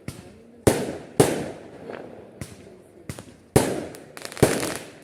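Fireworks going off: four sharp bangs, two close together about a second in and two more past the halfway point, each trailing off in an echoing decay.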